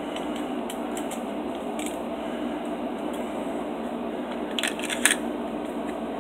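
Glock pistol parts being handled on a padded bench mat: light clicks, with a short burst of sharp clicks about four and a half seconds in, over a steady background hum.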